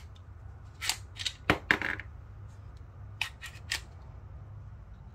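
A Canik TP9SF Elite 9 mm pistol being handled, giving sharp clicks and clacks: a cluster in the first two seconds, then three more a little past the middle.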